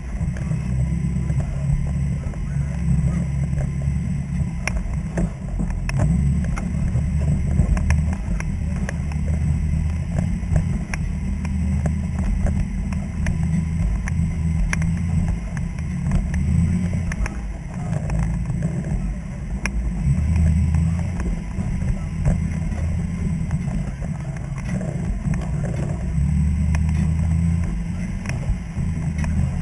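Off-road vehicle's engine running at low revs while crawling over rocks, picked up close through a hood-mounted camera: a low rumble that swells and eases with the throttle, with scattered knocks and clunks as the tyres and chassis go over the rocks.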